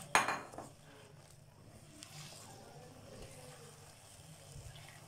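Quiet stirring of fried chicken pieces through thick, sticky orange sauce in a nonstick wok with a silicone spatula, over a faint sizzle. One brief louder stroke of the spatula comes just after the start.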